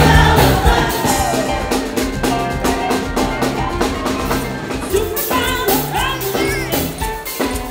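Live band playing an upbeat song, with a singer over drums and a steady beat.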